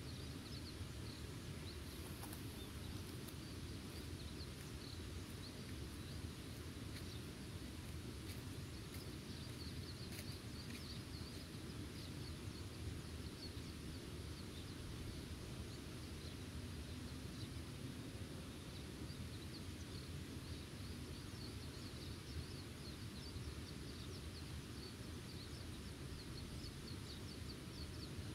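Outdoor meadow ambience: a steady low rumble like wind, with many faint, high chirps scattered throughout.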